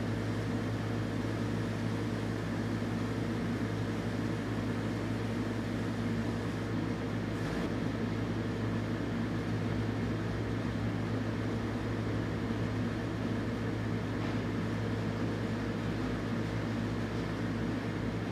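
Steady mechanical hum with a low drone, like a ventilation fan running, unchanged throughout.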